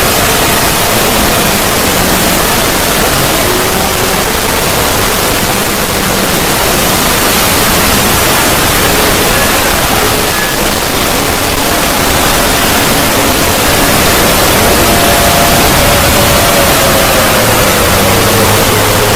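A 'void' ambience sound effect: loud, steady rushing noise like static, with faint tones sliding slowly downward near the end.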